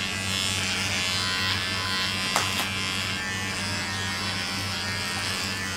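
Electric hair clipper buzzing steadily as it cuts a young boy's hair, with one brief click about two and a half seconds in.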